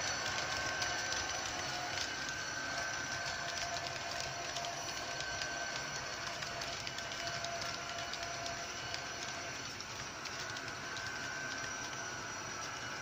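Model electric locomotive of the ZSSK class 381 pulling passenger coaches along the layout's track: a steady running noise full of small wheel clicks over the rails, with a faint steady high whine.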